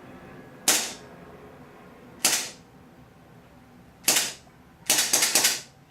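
HFC M93R gas blowback airsoft pistol dry firing on semi-auto, each shot a sharp pop of gas with the slide cycling. There are three single shots a second and a half to two seconds apart, then a quick run of about five shots near the end.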